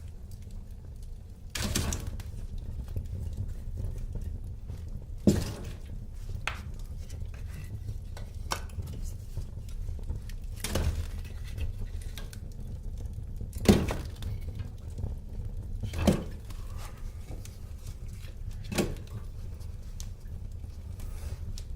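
Wood fire burning in a fireplace: a low steady rumble of flames with sharp crackles and pops every two to three seconds.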